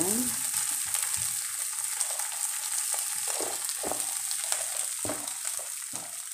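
Sliced beef and crushed garlic sizzling in hot oil in a pan, with a wooden spatula stirring and tapping against the pan. The sizzle fades out near the end.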